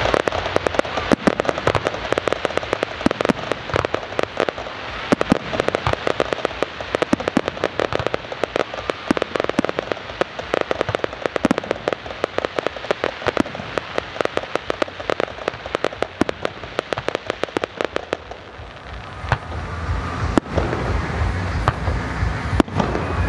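Fireworks display: a dense, rapid run of sharp pops and bangs going off in quick succession. It thins out briefly about three quarters of the way through, then builds again.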